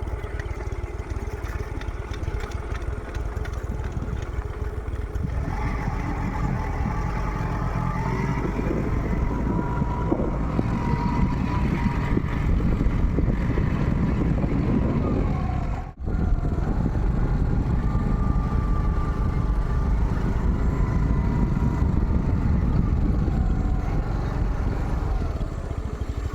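A motor vehicle running, with a strong low rumble and a faint wavering whine above it; the sound drops out for a moment about two-thirds of the way through.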